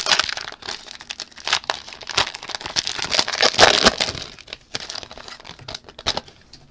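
Plastic wrapper of a football trading-card pack crinkling and being torn open by hand, a run of irregular crackles and rips, loudest about three and a half seconds in.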